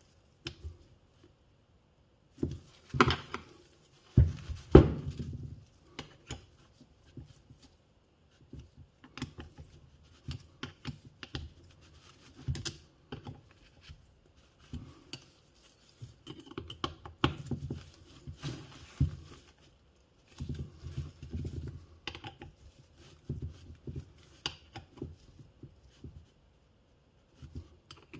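Tools and metal motor parts handled on a workbench: irregular clicks, taps and light knocks, with a few louder knocks about three and five seconds in.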